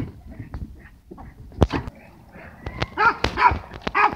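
A dog yipping and barking in several short calls in the second half, among sharp clicks and knocks.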